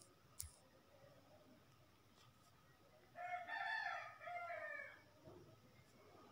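A faint, high-pitched call lasting about two seconds in two parts, starting about three seconds in. There is a soft click just before it.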